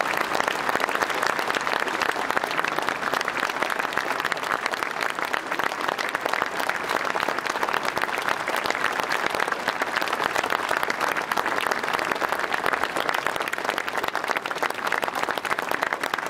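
A large audience applauding steadily, dense even clapping from many hands.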